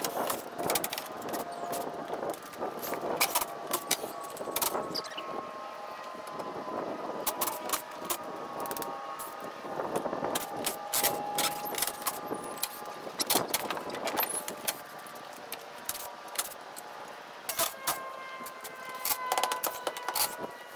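Irregular sharp clicks, taps and knocks of hand tools on wooden screen-room framing, as 1x2 battens and torn screening are pried off. Faint thin tones slide slowly lower in the background.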